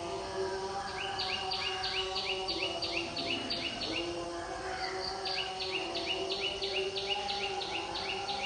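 Outdoor ambience: a high chirping call repeated about three times a second, in two runs, over a steady low hum.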